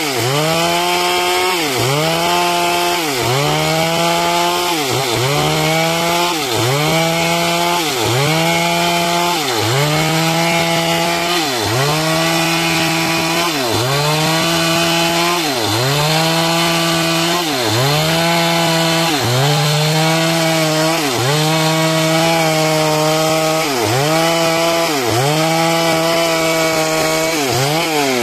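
Stihl MS 382 two-stroke chainsaw at full throttle cutting into teak. The engine pitch sags under load and recovers in a steady rhythm about every one and a half seconds.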